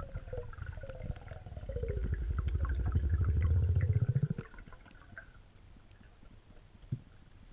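Muffled underwater rumble heard through the camera housing: a fast, low pulsing with a wavering tone above it. It grows louder, then cuts off about four and a half seconds in, leaving faint hiss and a few soft clicks.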